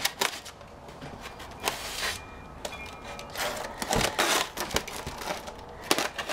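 Plastic film and styrofoam packaging being cut with a knife and handled: a string of irregular scrapes and crinkles, the longest about halfway through, with a few sharp clicks.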